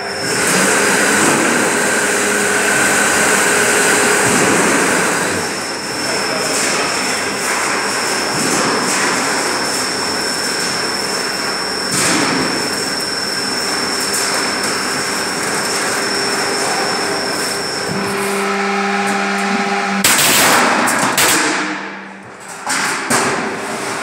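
Steel decking roll forming machine running, its forming rollers and drive making a dense mechanical noise with a steady high whine through the middle. There is a sharp knock about halfway through and a louder burst of noise near the end.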